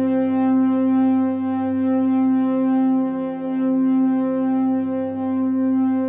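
Background music: a sustained synthesizer drone holding one steady pitch, with gentle swells in loudness.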